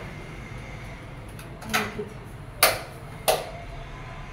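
Three sharp clacks of hard kitchen objects being knocked or set down, a little under a second apart, each with a brief ring.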